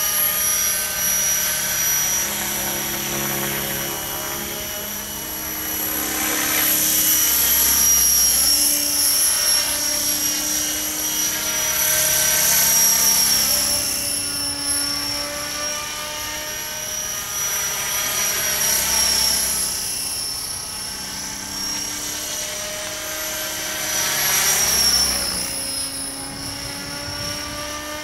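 600-size radio-controlled model helicopter in flight: a steady high-pitched whine over the chopping of its rotor blades. It grows louder and fades several times as it flies past and turns.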